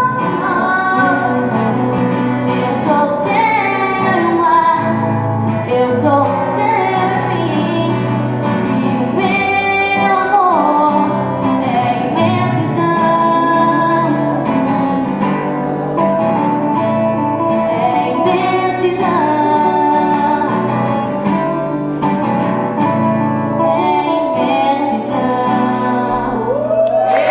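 Music: a song with guitar accompaniment and a voice singing a melody.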